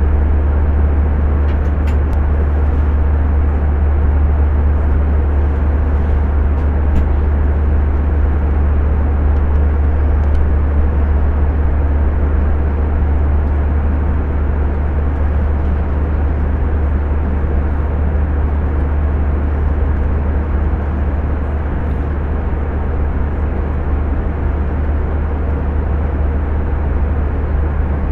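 Steady cabin noise of a jet airliner at cruise altitude, heard inside the cabin: a constant deep rumble of engine and rushing airflow that does not change.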